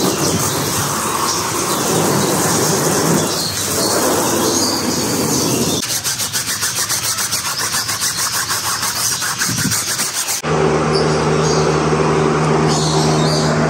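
Vacuum cleaner running with a steady rushing sound. After an abrupt change about six seconds in, a rapid even clicking runs for about four seconds, then a motor hum takes over.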